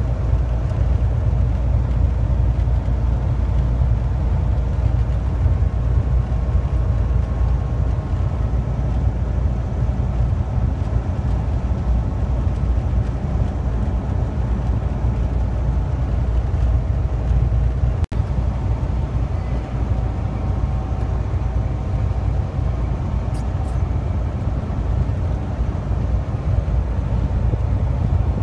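Steady low rumble of a truck's engine and tyres at highway speed, heard from inside the cab. The sound breaks off for an instant about eighteen seconds in.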